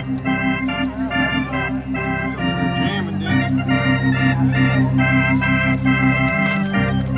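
Music with a steady beat: held chords that change every second or so over a regular pulsing bass.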